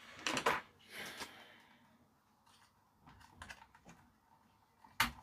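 Scattered clicks and taps of small parts and tools being handled on a Sansui tuner during disassembly, with a short scrape about a second in and a sharp click near the end.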